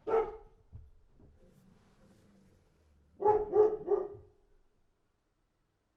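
A dog barking: one bark right at the start, then after a pause of about three seconds, three quick barks in a row.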